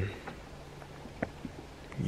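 A few faint scattered clicks, with one sharper click a little after a second in, over a quiet background.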